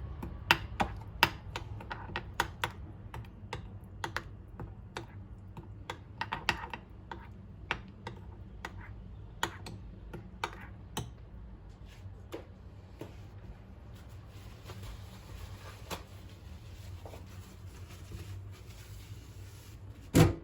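Spoon clicking and tapping irregularly against a bowl while stirring wheat flour, sugar and coconut milk into a batter, with one louder knock near the end.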